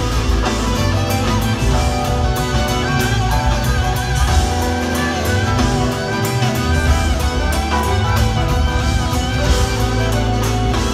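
Rock band playing live: electric guitar over electric bass and a drum kit, with cymbals ticking steadily.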